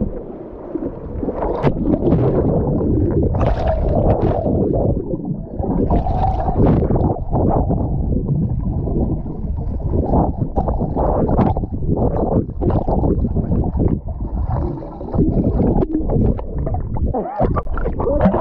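River water sloshing and splashing close against the microphone as it moves in and out of the water, with muffled underwater gurgling; irregular, with many sharp splashes.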